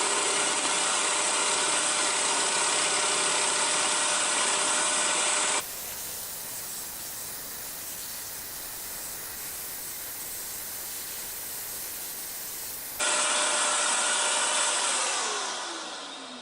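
Hegner scroll saw running, its blade cutting birch plywood with a steady buzz. From about 6 to 13 seconds the sound is quieter and hissier. Near the end the motor is switched off and its hum falls in pitch as it winds down.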